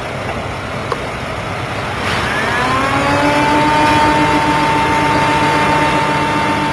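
Steady rumbling noise, with a motor whine rising in pitch about two and a half seconds in and settling to a steady tone: high-speed film camera motors running up to speed for a high-frame-rate shot.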